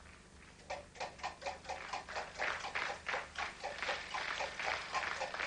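A game-show prize wheel spinning, its pointer clicking against the pegs about five times a second, starting about a second in.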